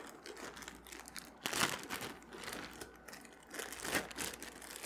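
Clear plastic packaging bag crinkling irregularly as a pair of PVC decoy gloves is pulled out of it. It is loudest about a second and a half in and again near the end.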